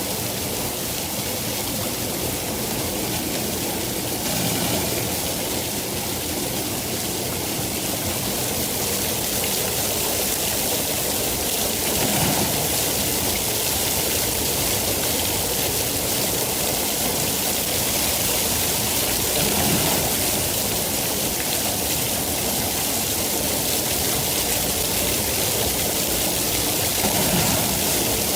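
Steady rain, a dense even hiss, with soft low swells about every seven to eight seconds.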